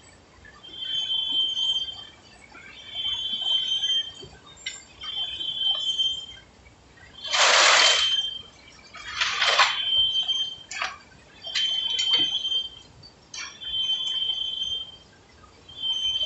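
Heavy lathe turning a large rough workpiece, with a high-pitched squeal that comes round about every two seconds, each lasting under a second. Two louder rasping rushes come about halfway through, followed by a few sharp ticks.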